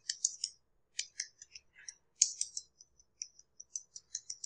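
Keystrokes on a computer keyboard: quick, irregular clicks in short runs as a terminal command is typed.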